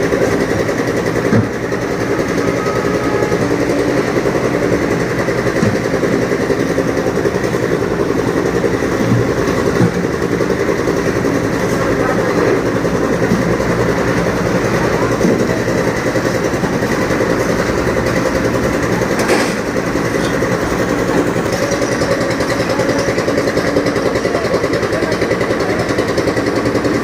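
An engine running steadily at a constant speed, with a few faint knocks.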